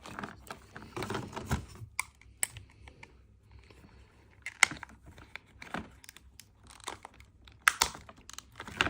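Plastic parts of a TUSA Intega dive mask being handled and pressed into place: scattered sharp clicks and taps among softer rubbing, a few louder clicks spread several seconds apart.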